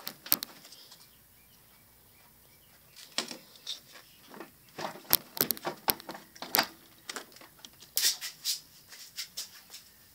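Irregular clicks, taps and knocks of hands handling parts and loosened battery hardware in a car's engine bay. They start about three seconds in, after a short quiet stretch.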